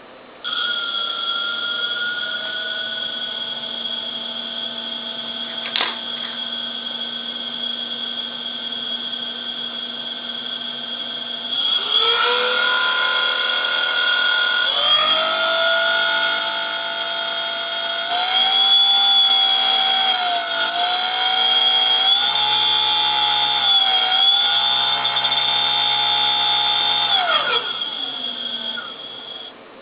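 Spindle of a homemade CNC milling machine spinning with no load: a steady high whine that steps up in speed and loudness about twelve and again about fifteen seconds in, shifts pitch a few times, then winds down to a stop near the end.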